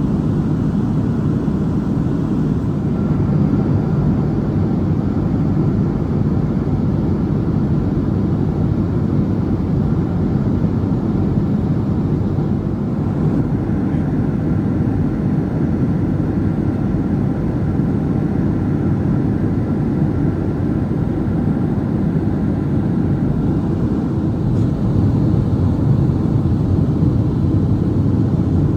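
Steady cabin noise inside a Boeing 737-700 in descent: an even, low rush of airflow and engine noise with no separate events.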